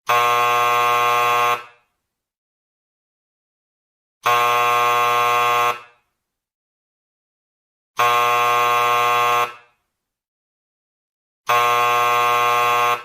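An electric buzzer sounding four times, each buzz about a second and a half long, with pauses of a little over two seconds between them.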